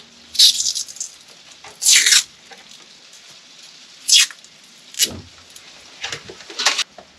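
Tape being pulled off its roll in short ripping pulls, about four times, as it is wrapped around a wiring connector, with a dull knock about five seconds in.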